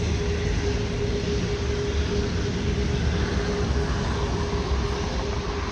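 Steady low rumble of an Airbus A380's jet engines at taxi power, with a constant mid-pitched hum over it.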